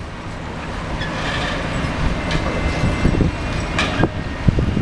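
Heavy construction machinery running with a steady low rumble, the Liebherr 924 long-reach excavator working its boom and bucket. A faint high metallic squeal runs through the middle, and there is a sharp metal clank about four seconds in.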